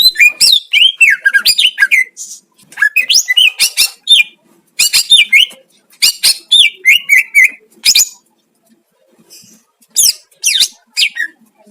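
Cucak ijo (green leafbird) singing: loud, varied phrases of quick whistles, sweeping notes and sharp chirps, broken by short pauses, with a longer lull a little past the middle.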